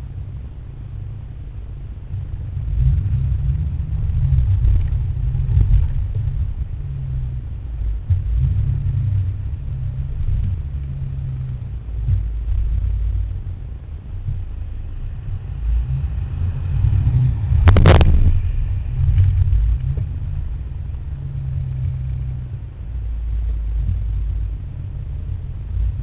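Cabin rumble of a Ford Mustang GT's V8 and its tyres on a winding road, swelling and easing as it drives. A single sharp knock comes about two-thirds of the way through.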